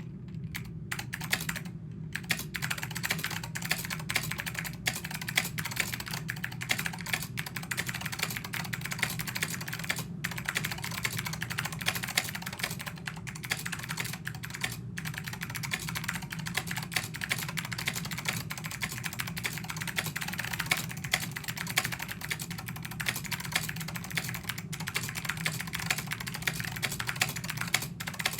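Continuous fast typing on a vintage Liteon SK-0002-1U keyboard with pine white Alps switches and double-shot keycaps: a dense, steady stream of key clicks.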